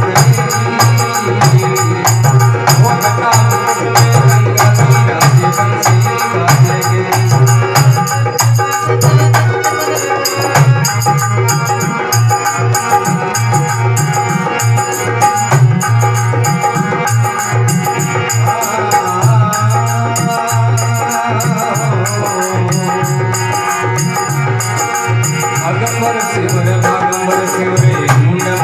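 Rajasthani folk music on traditional instruments: a hand drum and fast, even jingling percussion keep time under a sustained melody line.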